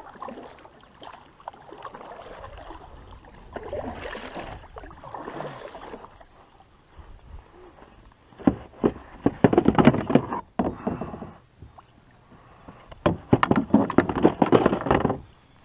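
Kayak paddle strokes: the paddle blades dipping and pulling through the water, with splashing and dripping, in two louder runs of strokes in the second half.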